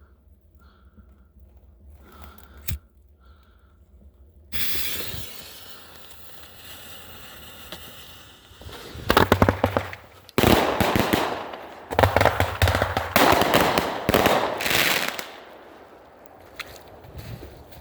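A ground firework going off: a sudden hiss starts about four seconds in, then dense, loud crackling pops from about nine seconds in for roughly six seconds, dying away near the end.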